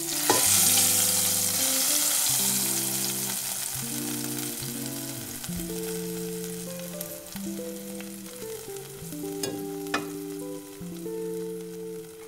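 Hot-oil tadka of fried red chillies, cumin, curry leaves and ajwain poured into a pot of yogurt-and-gram-flour kadhi. It makes a loud sizzle that starts about half a second in and dies away slowly over several seconds. A few sharp clicks come near the end.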